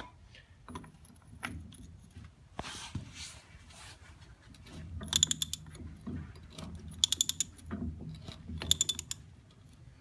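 Hand ratchet clicking in three short bursts of rapid clicks as it is worked back and forth, loosening the pinion yoke nut on a Ford F100 rear axle.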